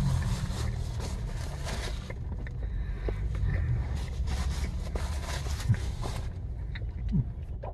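A man chewing a mouthful of crispy fish burrito close to the microphone, with crackly, crunchy noises that stop about six seconds in, over a steady low hum inside the car's cabin.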